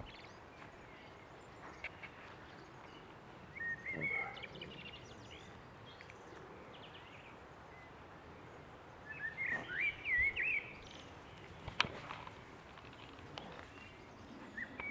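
Six-week-old Boston Terrier puppies whining and squeaking in short, high-pitched, wavering cries, in two bouts about five seconds apart, with a single sharp click near the end.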